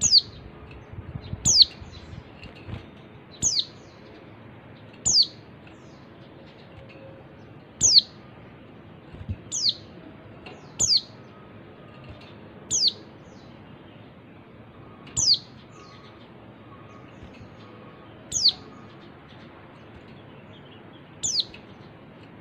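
A white-eye (pleci) giving single short, high, downward-sweeping chirps, about a dozen spaced one to three seconds apart at an uneven rhythm. This is the female white-eye's call, used as a lure to set male white-eyes singing.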